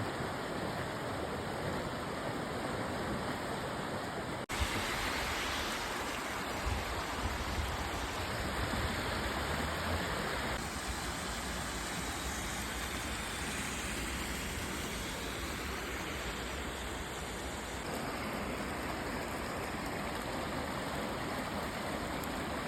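Water rushing out of a burst 600 mm trunk water main as a steady, heavy roar of spray. It breaks off for an instant about four and a half seconds in, then carries on.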